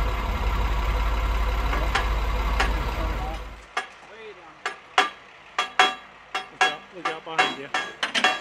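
A steady loud roar, then, after it cuts off about a third of the way in, about a dozen uneven sledgehammer blows ringing on the hot steel locomotive driver tire as it is driven onto its wheel center.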